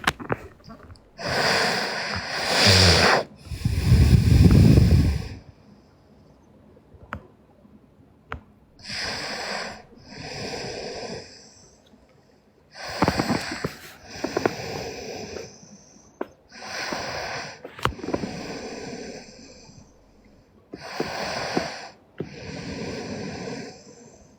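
A sleeping girl snoring: a loud, deep pair of breaths about a second in, then quieter in-and-out breaths in pairs, repeating about every four seconds.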